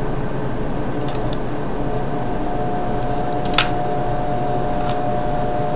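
Steady background hum and hiss, with one sharp click about three and a half seconds in and a few faint ticks from a compact digital camera being handled.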